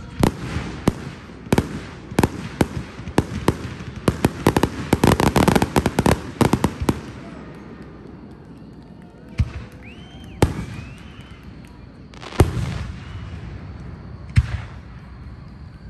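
Fireworks display: a rapid run of sharp bangs and crackle builds into a dense barrage over the first seven seconds. After that come a few separate heavy booms, spaced a second or two apart.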